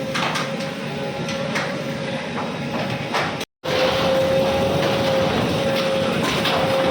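A bulldozer at demolition work, its engine running with a steady whine and scattered knocks; the sound cuts out for a moment about halfway through.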